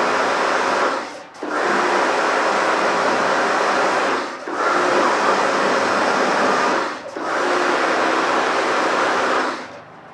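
Karcher K2 electric pressure washer running and spraying, a steady hiss of the water jet over the pump motor's hum. It cuts out briefly three times, as the gun's trigger is let go, and stops near the end.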